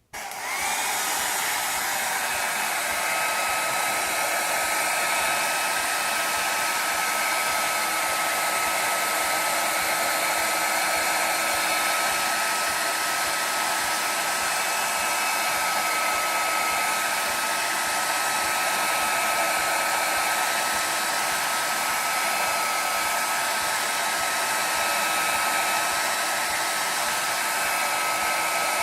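Handheld hair dryer switched on and blowing steadily, a constant rushing hiss with a steady whine from its fan motor, heating a detector's control panel to soften the screen adhesive.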